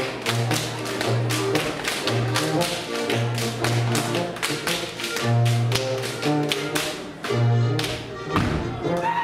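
Schuhplattler dancers slapping their thighs and shoe soles in a fast, even rhythm, about three or four slaps a second, over folk dance music with a steady bass line. The slapping breaks off near the end, where one heavy thud sounds.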